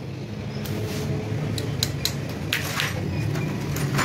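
A few light metallic clicks and taps of a screwdriver and small parts against the clutch assembly of an opened 70cc motorcycle engine, over a steady low background hum.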